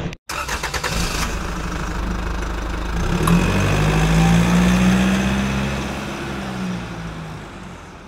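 An engine running with a low, steady drone that swells about three seconds in, then slowly fades away.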